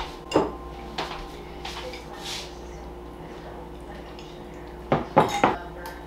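Kitchen utensils and dishes clinking and knocking during cooking: a couple of light knocks early on and a quick run of clattering clinks near the end, over a faint steady hum.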